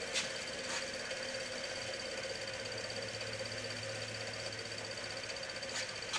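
Steady background room tone: a low hum and a faint high-pitched whine, with a few light clicks near the start and end.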